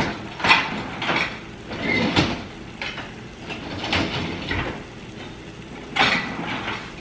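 Dishwasher door opened and its rack rolled out, with a string of clunks and clatters from the dishes and utensils as one is pulled out.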